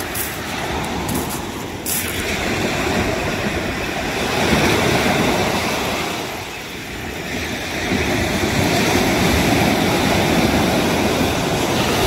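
Surf breaking on the beach and washing up the shore, a steady rushing noise that swells twice, easing briefly about halfway through.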